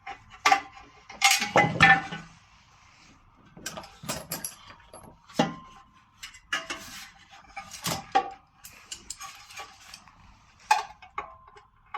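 Metal boiler parts and hand tools being handled, clinking and knocking in irregular sharp clicks, with the loudest clanks in the first two seconds.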